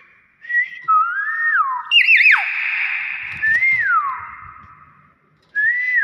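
Hill myna whistling a string of loud gliding calls: a short note, a note that rises then falls, a harsher wavering call about two seconds in, then falling whistles.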